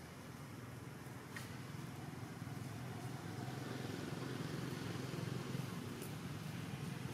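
Steady low outdoor background rumble, growing a little louder after about two and a half seconds, with a couple of faint clicks.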